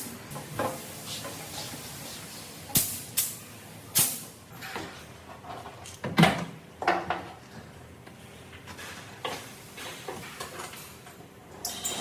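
Irregular knocks, clicks and clatters, a dozen or so spread unevenly, the loudest about six seconds in.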